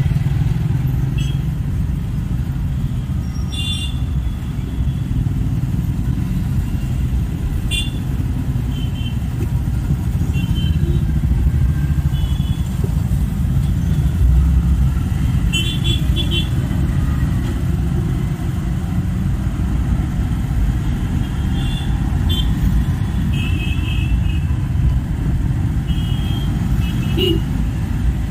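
Dense road traffic: a steady low rumble of engines, with short vehicle horn toots again and again, a couple of times several in quick succession.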